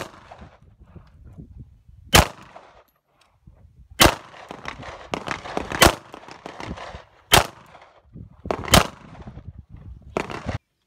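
Handgun firing a slow string of single shots, one every one and a half to two seconds, each shot ringing out briefly across the range. The sound cuts off suddenly near the end.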